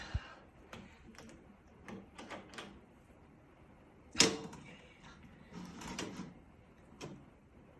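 Scattered light clicks, taps and scrapes from honey-harvesting gear being handled, with one sharper knock about four seconds in.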